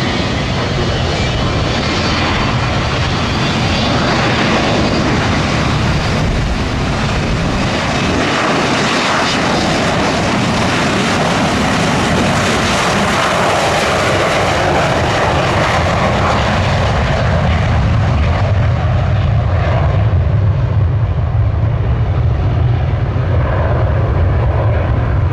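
Delta MD-88's rear-mounted Pratt & Whitney JT8D turbofan engines running loud and steady. In the last several seconds the high hiss fades and a deep low rumble grows stronger.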